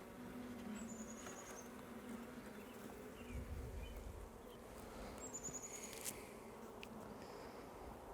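Honey bees from an open hive buzzing, a faint steady hum of many bees with a few single bees passing close.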